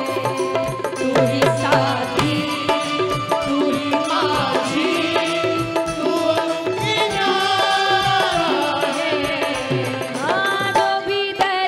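Devotional bhajan music: a woman singing over a steady drum beat and long held instrumental tones.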